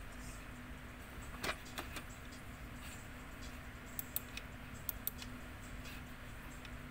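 Light clicks and taps of painting supplies (paint jars, brushes) being handled on a tabletop: a couple about a second and a half in, and a small cluster around four to five seconds in, over a faint steady hum.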